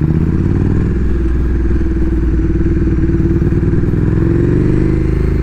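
Motorcycle engine running at low speed as the bike filters slowly through traffic, a steady pulsing exhaust note. The engine pitch rises a little about four seconds in.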